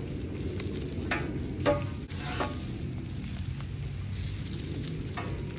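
Shishito peppers sizzling as they blacken on a very hot Blackstone flat-top griddle, with a metal spatula scraping and turning them on the steel a few times: about a second in, near two and a half seconds, and again near the end.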